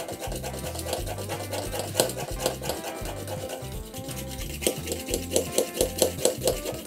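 Background music with a steady beat and bass line, over the scraping of a hand-twisted PCB drill boring into copper-clad board.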